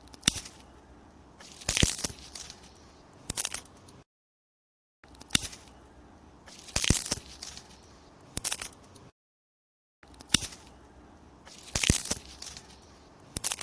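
Wooden branches snapping and cracking: three sharp breaks in quick succession, the middle one a longer splintering crack. The same set of three breaks plays three times with a second of dead silence between takes.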